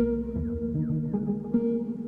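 Background music with steady sustained tones and new notes coming in every half second or so.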